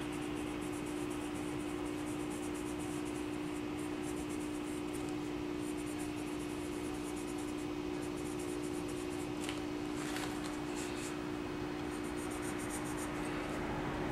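Colored pencil scratching on paper in quick, repeated short shading strokes that come in runs with brief pauses, under a steady low hum.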